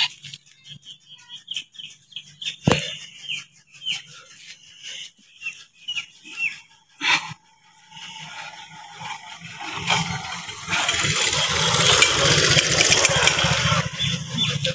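Small birds chirping in short, falling calls, broken by a couple of sharp clicks. About ten seconds in, a loud rushing noise with a low rumble takes over.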